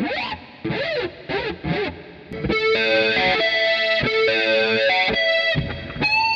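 Several short swooping sounds, rising and falling in pitch, in the first two seconds, as a household object is tried out as a "咻咻咻" whoosh for a sound effect. Then distorted electric-guitar music with held notes that change pitch a few times.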